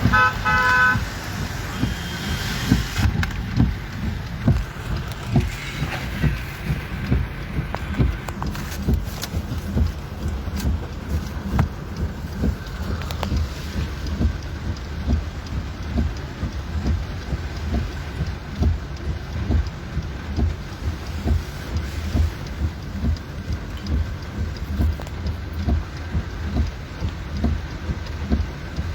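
Rain falling over road traffic, with a steady low rumble and frequent small bumps throughout. A car horn toots briefly at the start.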